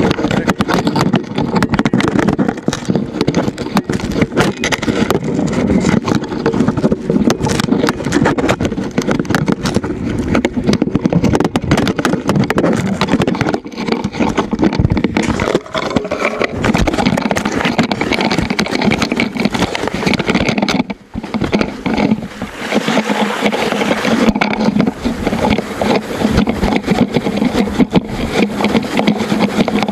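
A loose action camera, its mount broken, rattling and rubbing hard and without pause against a mountain bike and its rider as the bike rides a dirt trail. About two-thirds through, the clatter gives way to a steadier rumble.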